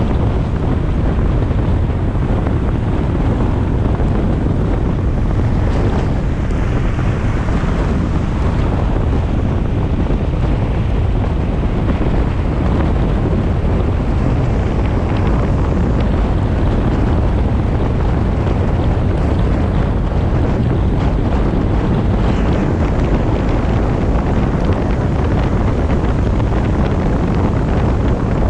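Steady road noise from a car driving on a wet expressway in the rain: tyre hiss on the wet surface and wind rumbling on the GoPro's microphone, with the weight in a deep rumble.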